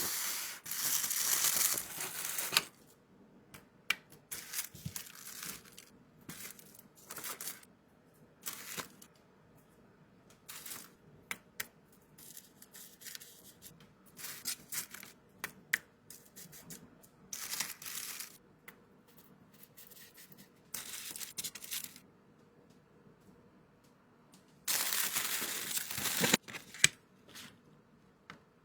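Stickers and labels being packed by hand: plastic packaging crinkling and rustling in short bursts, with a longer tearing rip at the start and another near the end.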